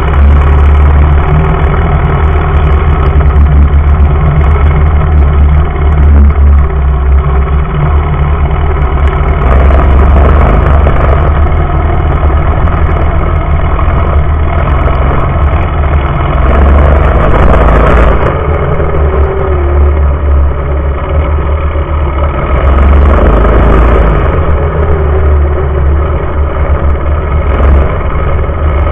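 Mini bike's small engine running hard at racing speed, heard up close beside its exhaust pipe, very loud, with the revs rising and falling.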